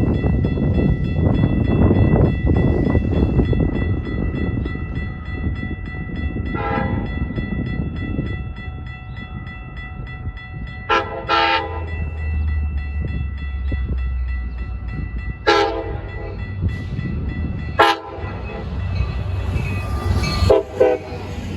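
Locomotive rumbling, with a Nathan K5LA five-chime air horn sounding in about six short blasts. A set of steady high ringing tones runs underneath.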